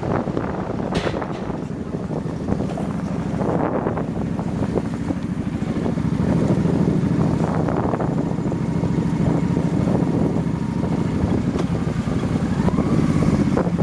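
Heavy wind buffeting the microphone of a moving motorbike, with the bike's engine running underneath.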